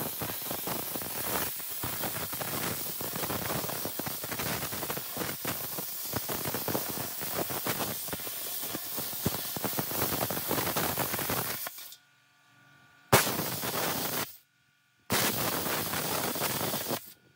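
Handheld plasma cutter cutting through sheet steel: a steady crackling hiss of the arc and air that stops about twelve seconds in. Two shorter cuts follow, each a second or two long, the first starting with a sharp crack.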